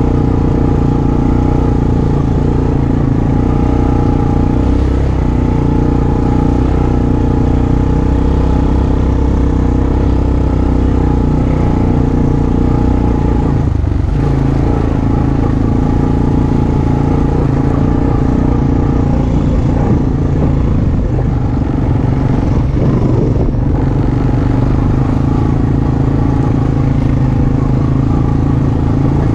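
Honda ATV engine running steadily as the machine rides along a dirt trail, its pitch dipping briefly about halfway through and wavering a little after.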